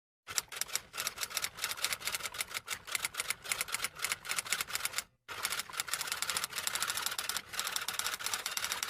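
Rapid typing clicks, many keystrokes a second, in two runs with a brief break about five seconds in.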